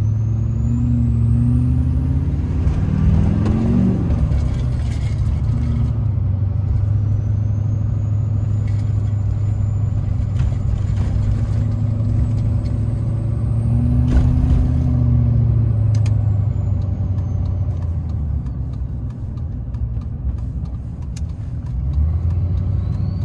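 2007 LBZ Duramax 6.6 L V8 turbo-diesel heard from inside the cab with the windows up: a heavy engine drone, with the KBD 63.5 mm billet-wheel turbo's whistle climbing as it spools up and falling away several times. The turbo is pretty loud.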